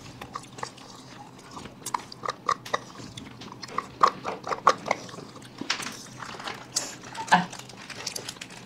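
Close-miked mouth sounds of people eating melting ice cream: irregular licking, slurping and smacking, heard as scattered short clicks.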